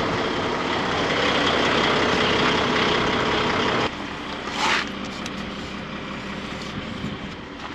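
Kenworth semi truck's diesel engine idling steadily. About four seconds in it suddenly becomes quieter, and a brief hiss of air follows.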